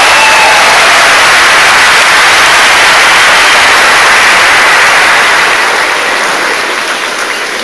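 Audience applauding: a loud, dense wall of clapping that starts to fade away over the last two seconds or so.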